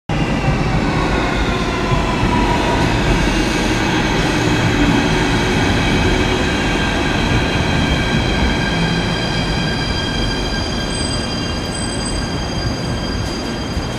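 Athens Metro electric train pulling into the station and braking, a loud rumble with a chorus of whining tones that fall in pitch as it slows, then hold steady as it comes to rest.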